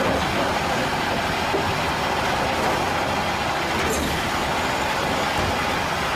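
Automated side-loader garbage truck running steadily, its diesel engine working the hydraulic arm as it lifts a wheeled trash cart over the hopper, empties it and lowers it back down.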